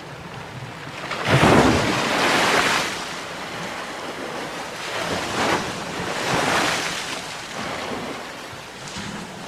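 Sea waves breaking on a shore: one loud crash a little over a second in, then smaller waves washing in.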